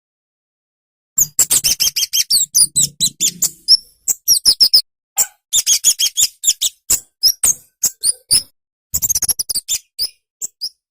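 Kemade (cabe-cabean), a small flowerpecker, calling in rapid runs of sharp, very high chips, several a second, starting about a second in with short breaks in between.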